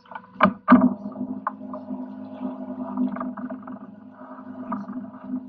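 Boat's Yamaha outboard engine running with a steady drone, with two sharp knocks near the start as metal lobster pots are handled at the rail.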